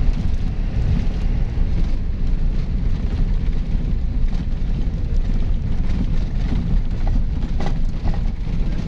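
Steady low rumble of a vehicle driving over a rough unpaved road, tyres and engine running, with wind buffeting the microphone. A couple of faint rattles come about seven and a half seconds in.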